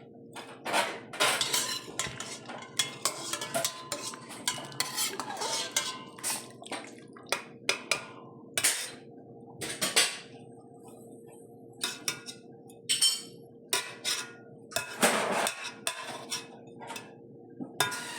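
Kitchen utensils clinking, knocking and scraping against pots and dishes in a run of irregular sharp clicks, with a faint steady hum underneath.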